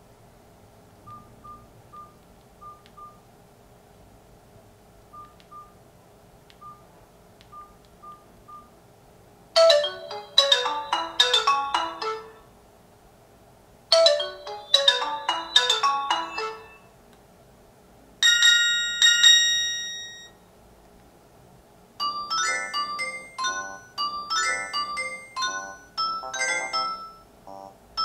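Nokia 3310 (2017) mobile phone playing its ringtones one after another through its small loudspeaker. Faint short beeps in small groups come first, then from about ten seconds in loud chiming melody phrases, a single held ringing tone, and a faster bright tune near the end.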